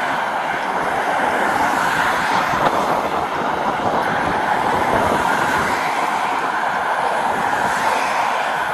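Steady rush of road traffic passing by, swelling slightly now and then.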